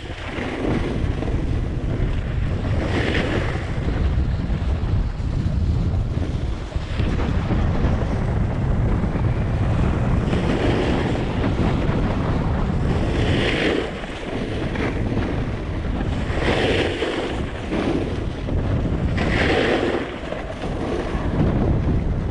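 Wind buffeting an action camera's microphone as a snowboarder rides downhill at speed, a steady low rumble, with the snowboard's edge hissing and scraping over packed snow in swells every few seconds as it turns.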